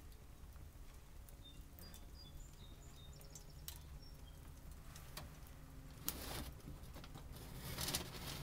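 Faint crackling and ticking of small wood fires burning in three backpacking wood stoves under pots, with a few short high bird chirps in the first half. Near the end come two louder rustling scrapes as the camera is moved.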